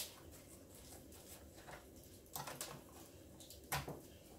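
Faint clicks and taps of a small screwdriver working screws out of a Paslode IM350 nail gun's housing, with a few sharper clicks: one at the start, a cluster just past halfway, and the loudest near the end.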